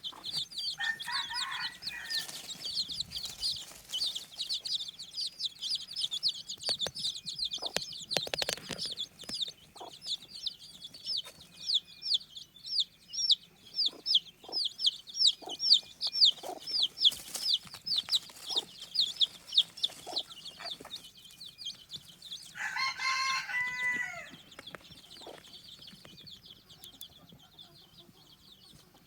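Chicks peeping: a rapid run of short, high, falling peeps, several a second, that dies away about three-quarters of the way through. A lower, longer chicken call comes once near the start and again just after the peeping stops.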